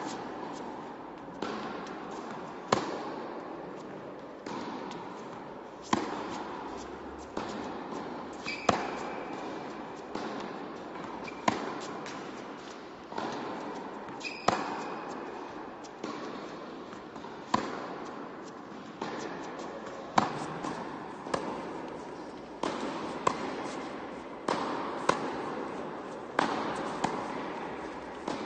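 Tennis rally on an indoor hard court: the ball is struck back and forth by rackets, with sharp hits about every second and a half, some louder and some softer. Each hit rings on in the hall's echo.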